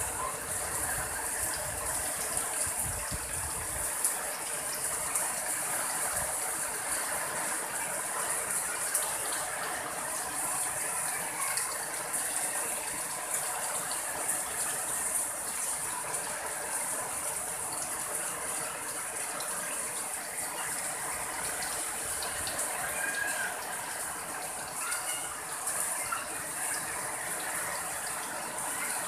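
Heavy downpour: a steady hiss of rain falling on papaya and banana leaves and the surrounding garden. A low rumble sits under the rain in the first few seconds.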